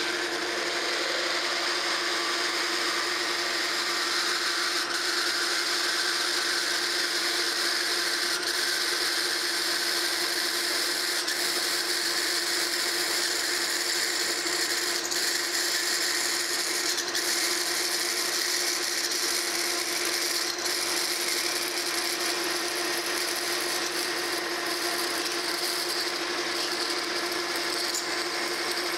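Metal lathe running steadily while a twist drill cuts through the spinning metal workpiece, enlarging its bore: an even machine hum with one clear steady tone under the hiss of the cut.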